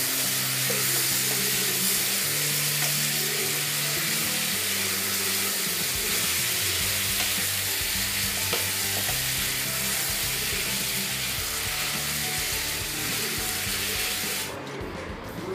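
Carrot halwa sizzling and bubbling in a nonstick pan as it is stirred and scraped with a wooden spatula, in its last stage of cooking down. The sizzle cuts off sharply near the end.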